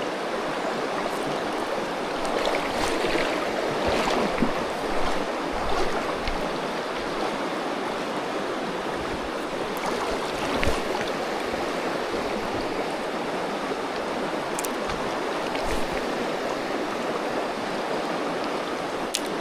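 Steady rushing of a fast-flowing river over its bed, with a few faint ticks.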